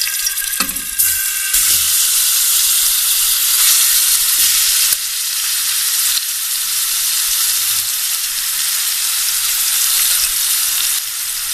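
Marinated chicken pieces sizzling loudly in hot oil in a frying pan, a steady dense hiss.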